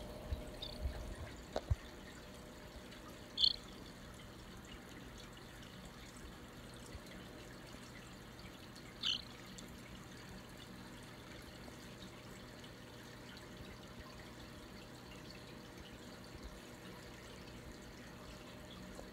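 A baby starling gives two short high chirps, one about three and a half seconds in and another about nine seconds in, over a steady faint hiss. A few soft taps come in the first two seconds.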